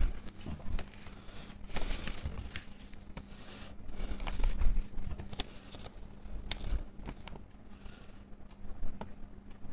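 A sheet of paper being handled and a ballpoint pen writing and underlining on it: scattered rustles, scratches and small taps. A faint steady low hum runs underneath.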